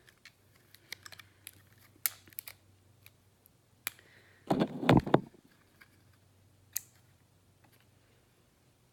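Light clicks and taps of a plastic cream-blush compact being handled, with a louder bout of handling noise about halfway through and a last click a couple of seconds later.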